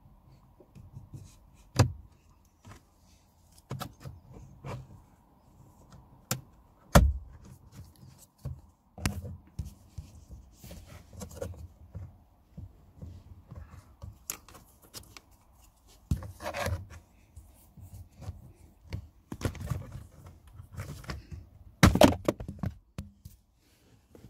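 Plastic dashboard trim being pried and handled with a plastic trim removal tool: scattered clicks, knocks and plastic snaps with scraping and rustling between them. The loudest snaps come about 2 seconds in, about 7 seconds in, and near the end.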